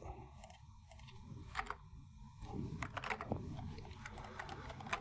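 Faint clicks of a computer mouse and keyboard, a few scattered taps, over a low steady room hum.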